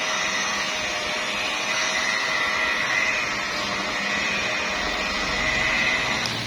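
Electric car polishing machine running steadily with a continuous whine at its slow speed setting, its pad buffing the paint of a car bonnet.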